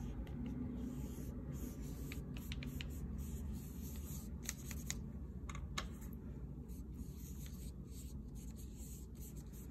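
Soft scratchy rubbing of a wet watercolour paintbrush stroking across paper, with a few faint clicks about halfway through.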